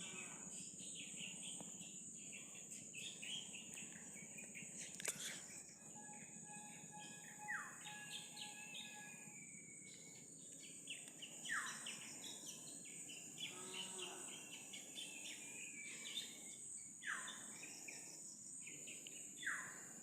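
Birds chirping and calling, with four sharp falling whistles spread through, over a steady high insect drone.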